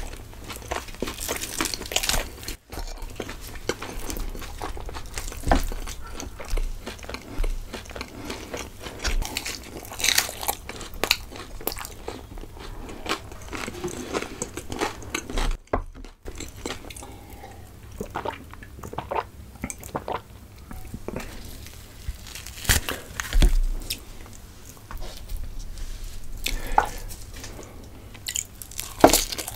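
Close-miked chewing and biting of chhole bhature, fried bread with spiced chickpea curry, with irregular wet mouth clicks and smacks.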